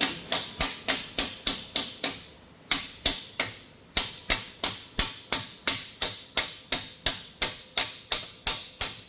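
Hammer tapping the exhaust pipe clamp collars to drive them clear of the joint. Sharp, even strikes at about three a second, with a brief pause a couple of seconds in.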